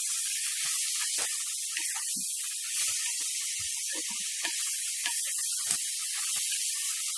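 Mushrooms, onions and green capsicum sizzling as they are stir-fried in a clay pot, a steady hiss, with the spatula scraping and knocking against the pot's sides now and then as it stirs.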